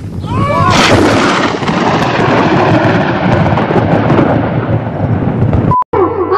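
Thunder sound effect: a sudden crash about half a second in that rumbles on and slowly fades. It is cut off near the end by a short beep, and harmonium music begins.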